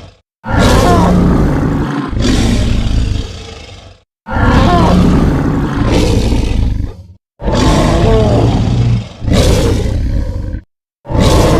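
Made-up monster roars, the imagined voice of a cryptid shark: six loud, deep, growling roars in a row, each one to three seconds long, with short silent gaps between them.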